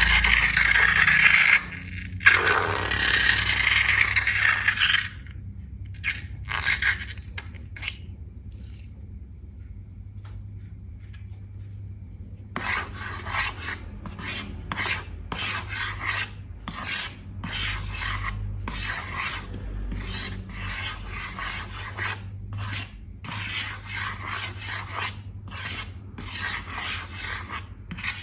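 Slime being mixed and worked by hand, rubbing and scraping. A steady stretch in the first few seconds is followed by a lull, then quick repeated short squishing strokes from about the middle on.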